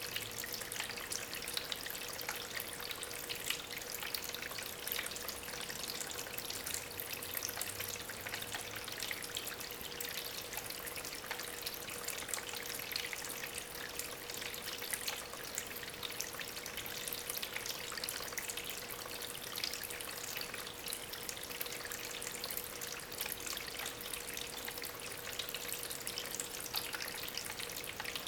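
Small homemade tabletop waterfall: water from a small aquarium pump trickling and splashing steadily over natural stones, with fine crackly splatter. A faint steady hum sits underneath.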